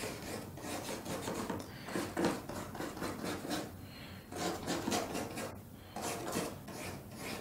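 Paintbrush scrubbing oil paint onto a board painting at an easel: short brushing strokes, several a second, in groups broken by brief pauses.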